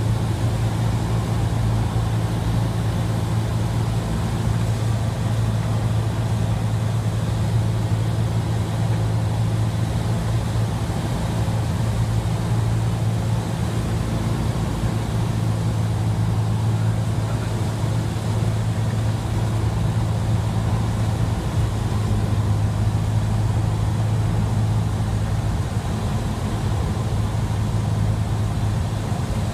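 Cessna 172SP's four-cylinder Lycoming engine and propeller droning steadily, heard inside the cabin, during the descent on approach to land.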